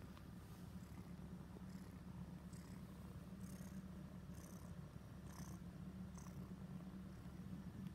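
Kitten purring: a low, steady, fluttering rumble.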